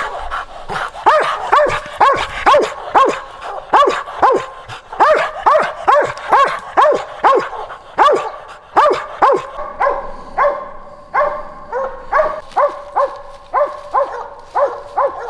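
A squirrel dog barking steadily at about two barks a second, a treeing bark that says the dog has a squirrel up a tree. The early barks drop in pitch; from about two-thirds of the way in they hold a steadier pitch.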